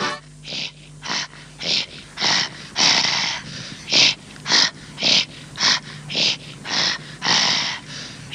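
Rhythmic, raspy breath-and-throat sounds of a traditional Kamchatka folk dance, about two harsh exhalations a second, some held longer. A faint steady low hum runs underneath.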